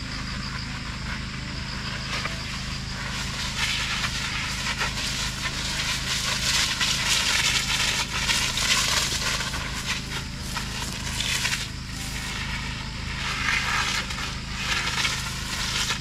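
Pesticide spray hissing from a long spray-lance nozzle and pattering through the leaves of a persimmon tree, swelling and ebbing as the lance is swept through the canopy, over a steady low hum.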